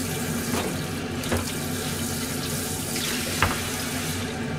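Water running steadily from a kitchen tap into the sink as things are rinsed under it, with two light knocks, about a second and a half in and again near the end.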